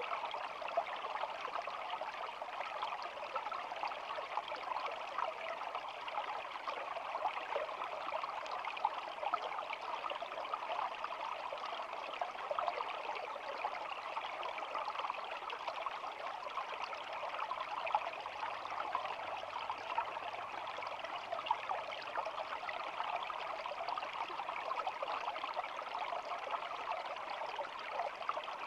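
Small shallow stream flowing steadily: a continuous babbling, trickling water sound with no breaks.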